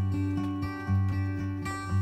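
Background music: plucked acoustic guitar playing with a steady beat and a strong bass.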